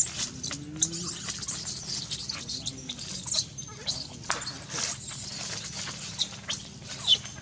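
Baby macaque squealing: a rapid, continual run of short, very high-pitched squeaks and squeals, some falling in pitch at the end, with a few sharper loud peaks.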